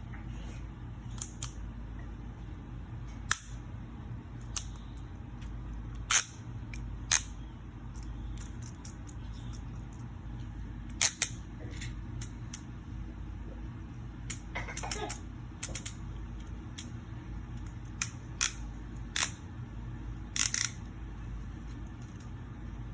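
Plastic parts of a Tobot Power Train transforming toy clicking and snapping as they are turned and locked into place, sharp single clicks at irregular intervals with a short rattle about two thirds of the way through, over a steady low hum.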